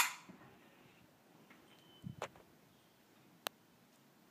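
Handling of a Ruger 10/22 rifle between shots: a sharp clack right at the start that dies away quickly, then a soft knock about two seconds in and a single sharp tick about three and a half seconds in as the rifle is brought up to the shoulder.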